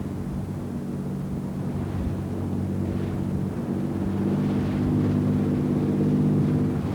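Boat engine running steadily with a low hum, growing louder and shifting slightly in pitch about halfway through.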